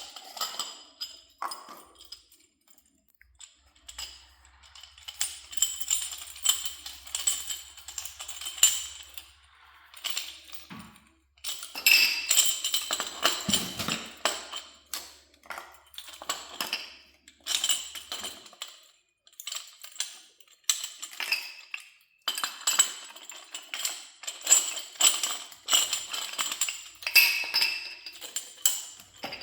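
Irregular clinks, clicks and scrapes of metal fittings and hand tools being handled, in runs of rapid small knocks with some brief metallic ringing, separated by short pauses.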